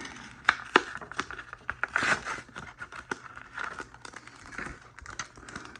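Foil Yu-Gi-Oh! booster pack wrapper crinkling and tearing as it is opened by hand, in scattered irregular crackles with a denser rustle about two seconds in.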